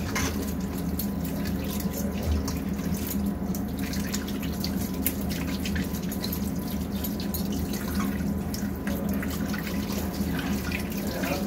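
Kitchen tap running into a stainless steel sink while hands rub and rinse raw fish pieces in a steel colander, the water splashing off hands and fish in an irregular patter.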